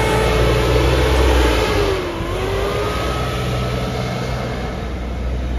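Sherp N 1200 amphibious ATV's diesel engine revving under load as the big low-pressure-tyred vehicle climbs through mud and sand. The engine note dips and the level eases about two seconds in, then it runs on steadily.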